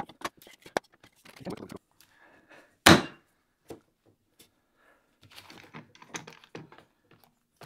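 A generic parallel jaw clamp being closed and tightened onto a wooden board. Sharp clicks and knocks of the sliding jaw on its steel bar, one loud wooden thunk about three seconds in, then softer clicking and rubbing as the screw handle is turned. The bar has been filed so that the jaw bites instead of slipping.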